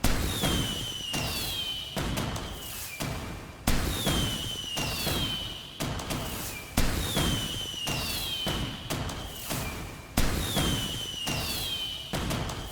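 Fireworks bursting in quick succession, a sharp bang every second or two, each followed by a short falling whistle.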